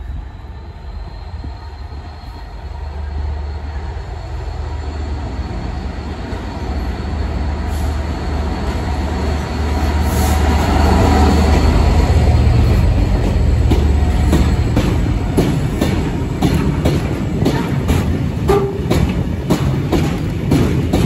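GB Railfreight Class 66 diesel-electric locomotive 66771, with its two-stroke EMD V12 engine running, approaches and passes close by with a deep drone that grows loudest about halfway through. After it, a train of cement tank wagons rolls past, its wheels clicking rhythmically over the rail joints.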